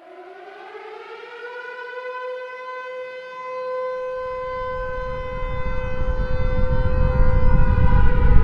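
Siren-like intro sound effect: a wailing tone sweeps up in pitch and then holds steady, growing louder throughout. A low rumble builds in from about halfway and swells toward the end.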